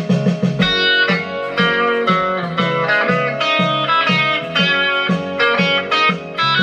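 Guitar-led music with a steady beat. A repeated plucked figure gives way about half a second in to fuller ringing chords.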